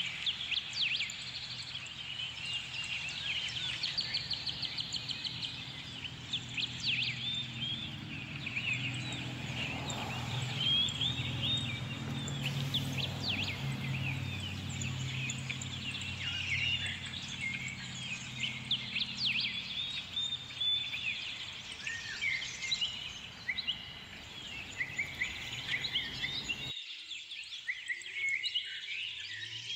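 Many small birds chirping and twittering in quick, overlapping calls, with a low hum underneath from about a third of the way in to about two-thirds. Near the end the background below the chirps suddenly drops away.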